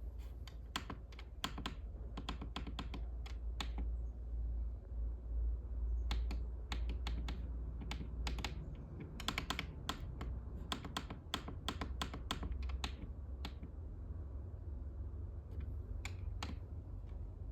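Thermostat buttons being pressed in quick runs of sharp clicks while its settings are stepped through, over a low steady hum.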